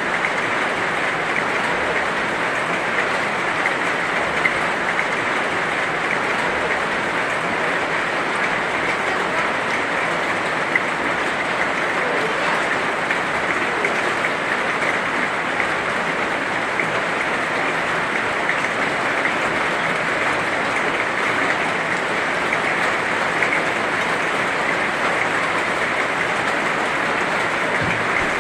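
Heavy rain falling steadily, a dense even patter of drops with small scattered ticks and no let-up.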